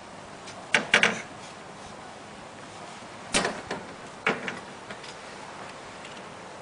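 Knocks and rattles from a sliding glass door as a baby grabs its frame and leans on the sill: a few short, sharp knocks about a second in, then another cluster from about three and a half seconds.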